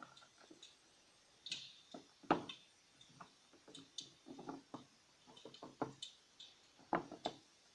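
Irregular light clicks and knocks of the electric fireplace's plastic parts being handled, likely the decorative logs being set onto their contacts; the sharpest knock comes about two seconds in, with another pair near the end.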